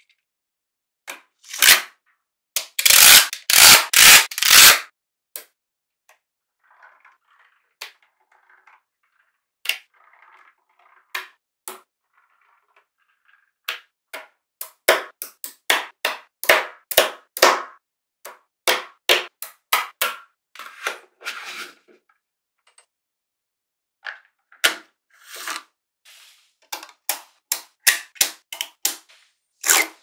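Small metal magnetic balls clicking and snapping together as they are handled and pressed into place: scattered sharp clicks, a dense run of loud clacks a few seconds in, and quick strings of clicks through the second half.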